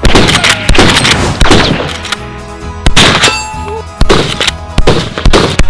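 Gunshots, about half a dozen spaced roughly a second apart, each with a ringing tail, over background music.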